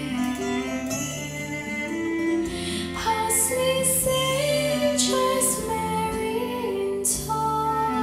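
Recorded music played back through a pair of KEF LS50 bookshelf speakers driven by a Yamaha RX-A3080 AV receiver: a woman singing over sustained instrumental chords, the voice coming in about three seconds in.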